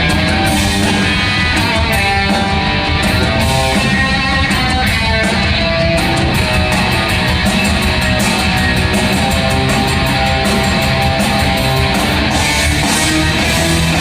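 Punk rock band playing live: loud strummed electric guitars over steady cymbal hits, an instrumental stretch of the song.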